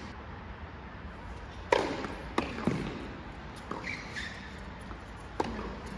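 Tennis ball impacts from racket strings and court bounces: a handful of sharp pops at uneven spacing, the loudest a little under two seconds in.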